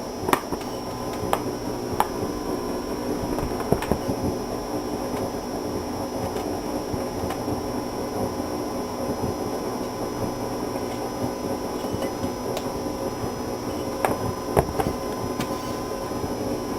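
Electrical interference noise from a Focusrite Scarlett 2i2 audio interface coming out of the speakers: a steady buzz and hum with a high whine over it, broken by a few sharp clicks near the start and near the end. It is the unwanted background noise of a faulty computer-to-interface setup.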